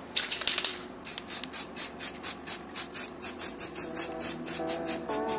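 Rasping strokes of an abrasive rubbed back and forth by hand, about four strokes a second, with background music coming in near the end.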